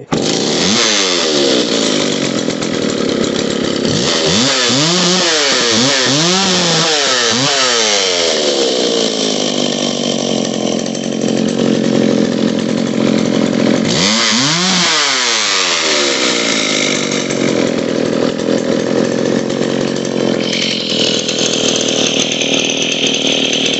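Vintage McCulloch Pro Mac 650 two-stroke chainsaw firing up with its throttle locked at fast idle, catching at once and then running loud and fast. Its revs swing up and down several times.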